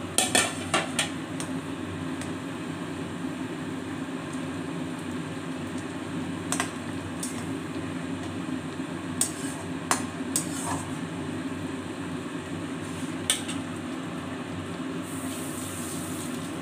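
Mustard fish curry simmering in a wok with a steady bubbling hiss. A metal spatula knocks and scrapes against the pan: a quick cluster of knocks at the start, then single clicks now and then.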